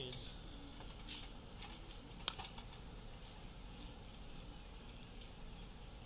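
Faint outdoor background with a few light clicks and knocks from an aluminium stepladder being climbed, the sharpest about two seconds in.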